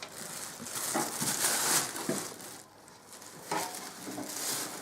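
Plastic protective film and polyethylene wrapping rustling and crinkling as they are handled and pulled off a new electric fireplace, in irregular bursts with a short lull midway.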